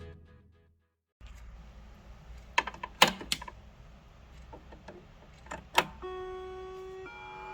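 Sinix 523 striking wall clock: a few sharp mechanical clicks, then about six seconds in its chime starts, held notes stepping from one pitch to the next.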